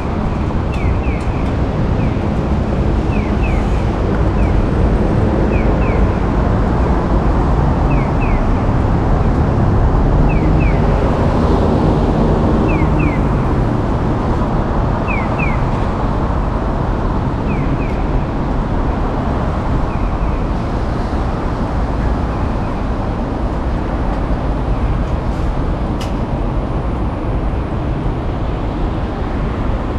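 Steady street traffic noise with a vehicle passing about ten to thirteen seconds in. A short high double chirp repeats every couple of seconds, fading away after about twenty seconds.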